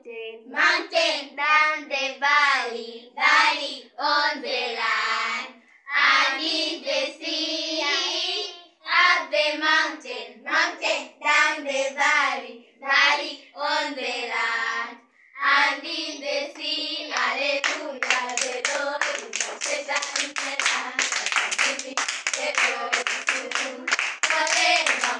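A group of young girls singing together without instruments, joined by fast hand-clapping for the last third.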